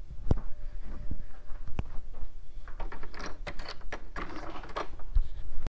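A few sharp knocks, with clusters of short rustling and clattering about three to five seconds in.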